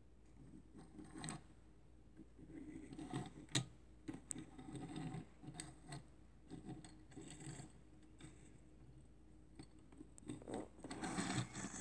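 Die-cast toy van pushed back and forth by hand across a desk top: faint, on-and-off rolling rumble of its small wheels with a few light clicks, loudest near the end.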